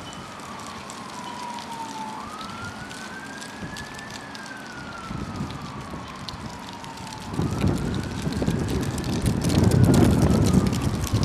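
A siren wailing, its pitch climbing for about two seconds and then sliding down for about three, over and over. A louder rushing noise joins it about seven seconds in.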